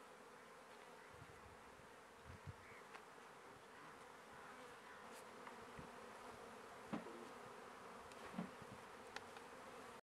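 Faint, steady buzzing of a mass of honeybees around their hives, with a few faint knocks.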